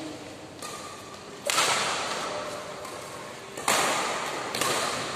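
Badminton racket hits on a shuttlecock during a doubles rally. Each hit is a sharp crack that rings on in the echo of a large sports hall. There are four hits: two loud ones about two seconds apart, each with a lighter hit shortly before it.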